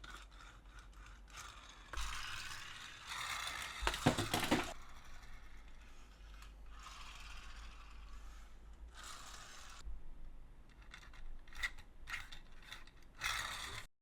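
Plastic Plarail and Tomica toy parts clicking, rattling and scraping in irregular bursts, loudest about four seconds in.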